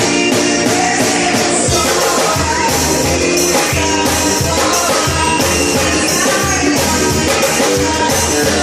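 Forró music playing loud with a steady beat and singing.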